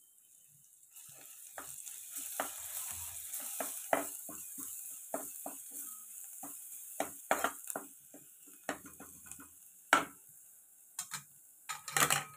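Sliced garlic sizzling in hot coconut oil in an aluminium pressure-cooker pan, stirred with a plastic spatula that scrapes and knocks against the pot many times. The sizzle starts about a second in and dies down in the second half.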